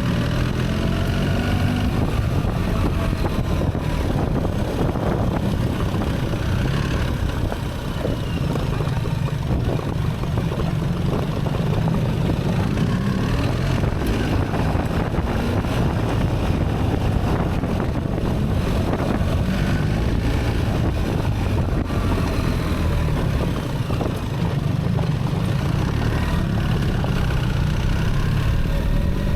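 Onboard sound of a BMW R 1300 GS Adventure's boxer twin engine under way on gravel, its note rising and falling as the Automated Shift Assist changes gears, with wind noise.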